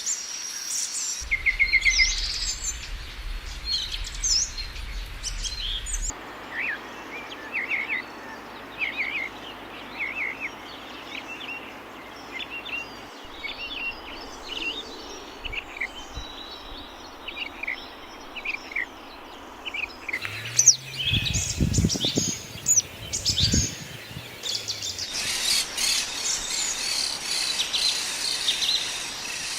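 Several wild birds chirping and singing in quick, short notes and trills. The background changes abruptly a few times, with a few low thumps about two-thirds of the way through.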